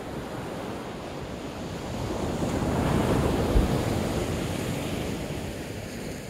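Ocean surf: a wave swells, breaks and washes back, loudest about halfway through, with wind rumbling on the microphone.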